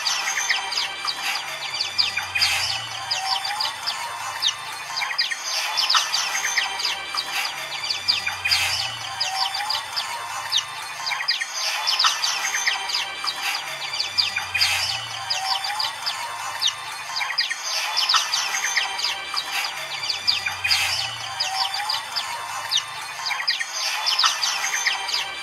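A flock of white-eyes (pleci) chattering and singing together in a dense stream of high chirps and trills. The chorus repeats about every six seconds. It is a 'pleci ombyokan' massed-flock recording, used as song therapy to coax a silent pleci back into song.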